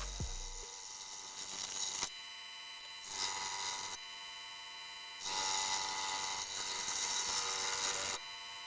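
Scroll saw with a spiral blade cutting wood: a steady machine whine under a hissing cut. It switches abruptly between louder and quieter stretches every second or so.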